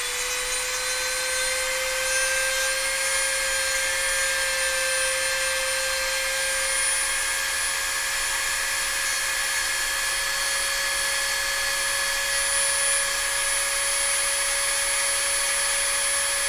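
Dremel rotary tool running at speed with a steady high whine, its grinding-stone bit shaving excess plastic from an airsoft piston head.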